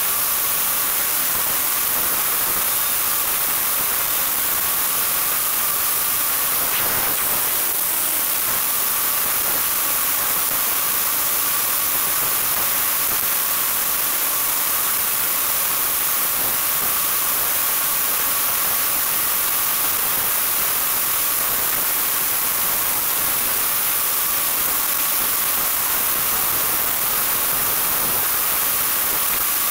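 Electric RC car driving fast over asphalt, heard from a camera mounted on the car: a steady hiss of tyre and drivetrain noise with a faint, even whine running underneath.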